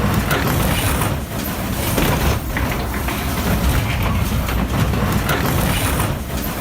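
Heavy scrap-processing machinery at work: a loud engine rumble under continuous crunching, grinding and clatter.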